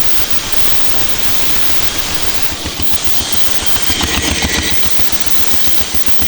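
An old engine running steadily, with a rapid, regular thudding beat.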